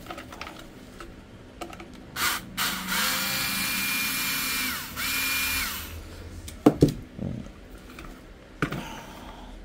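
Truper cordless electric screwdriver backing a screw out of a steam iron's plastic housing. Its motor whines steadily for about two seconds, then runs again briefly, winding down in pitch as it stops each time. A few sharp knocks follow a little after.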